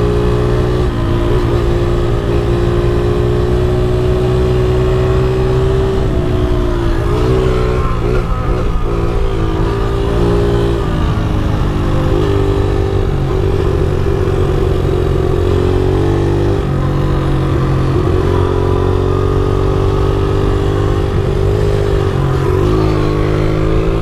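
Pit bike engine running under way at a steady cruising speed, its pitch dipping and picking up again a few times as the throttle is eased off and reopened, then rising near the end as the front wheel lifts into a wheelie.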